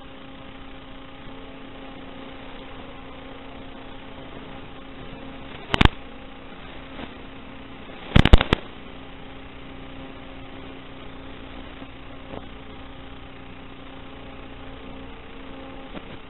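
Steady electrical hum and hiss on the FPV goggles' recorded audio track, broken by a loud crackle about six seconds in and a short burst of crackles around eight seconds in.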